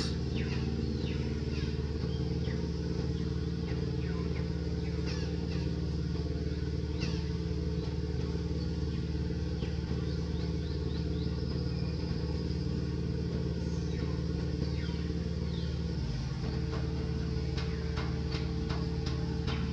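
A steady low engine hum made of several held tones, which shifts slightly late on, with many short high chirps over it.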